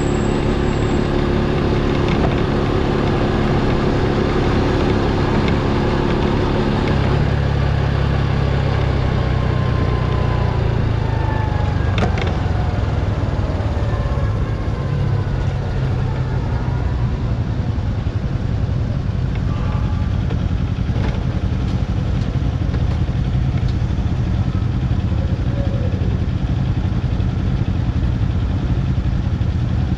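Motorcycle engine running as the bike rides along, with wind noise on the microphone; the engine note changes about seven seconds in.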